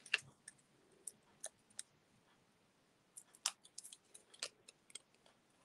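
Faint, scattered clicks and taps of paper pieces and small craft tools being handled on a desk, busier in the second half.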